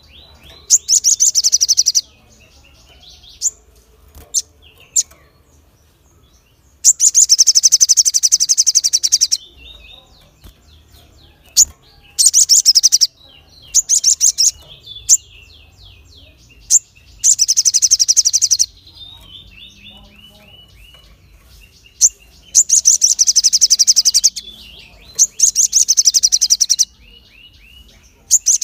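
A caged sunbird singing: about six loud, sharp, rapid trilling bursts of one to two and a half seconds each, with single sharp chirps and softer high twittering between them.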